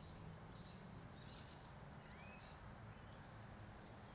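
Near silence with a few faint bird chirps: short high calls about half a second in and around two seconds in, one of them rising, over a low steady rumble.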